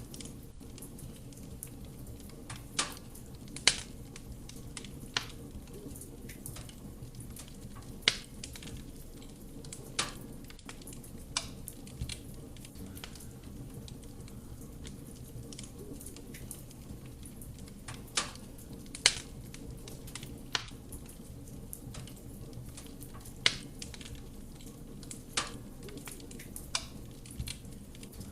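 Wood fire burning in a fireplace: a steady low rumble of flame with irregular sharp crackles and pops from the burning logs, about a dozen loud ones scattered through.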